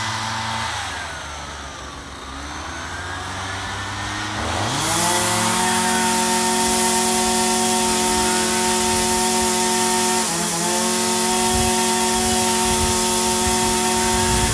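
Small two-stroke engine running. It slows, its pitch falling over the first two seconds, then revs back up and holds a steady high speed from about five seconds in, with a brief dip about ten seconds in.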